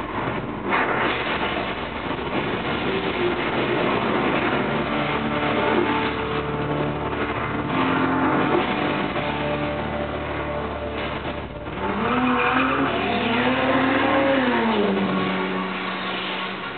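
Action-film soundtrack of vehicles and crashes heard through a TV's speakers: a dense, continuous wash of engine and crash noise. A pitched tone slides up and back down near the end.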